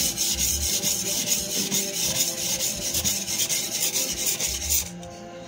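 Steel cleaver blade being stroked rapidly back and forth on a slurried 400-grit water stone: a steady scraping rub that stops near the end.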